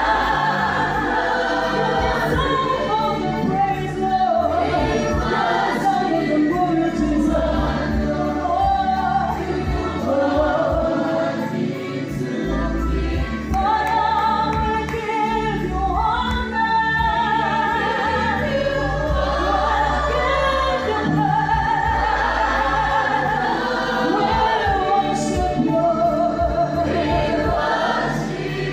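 Gospel choir singing a worship song, a woman leading on a microphone, accompanied by an electronic keyboard and two violins.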